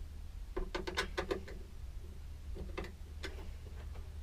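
A hand screwdriver turning a screw into a white plastic caravan washbasin and tap unit: a quick run of small clicks about half a second in, then a few more spread out.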